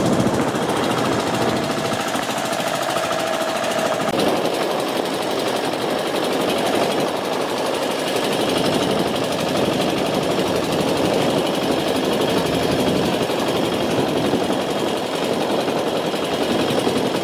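A fishing boat's engine running steadily, a dense, even mechanical drone with no pauses.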